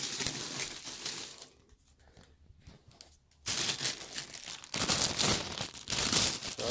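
Plastic wrapping crinkling and rustling as it is pulled off a subwoofer, in bursts, with a lull of about two seconds in the middle.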